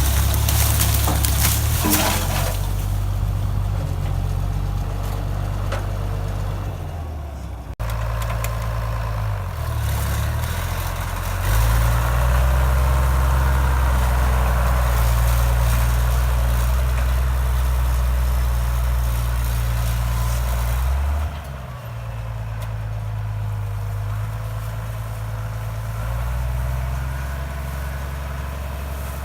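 International farm tractor's engine running steadily. There is a break about a third of the way in. The engine gets louder soon after and drops back again about three quarters of the way through.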